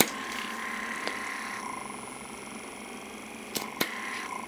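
Lumae Skin microdermabrasion wand's small suction pump running against the skin, with a steady whine that comes and goes, once early and again near the end. A sharp click at the start and two quick clicks about three and a half seconds in.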